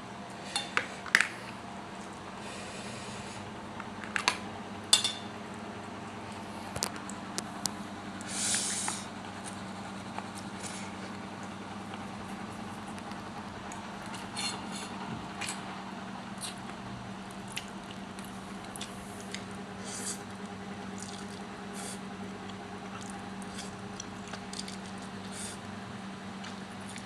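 Eating and food-handling sounds during a fish meal: scattered sharp clicks and light clinks of dishes, with soft squishy handling and one short hissy burst about eight seconds in, over a steady low hum.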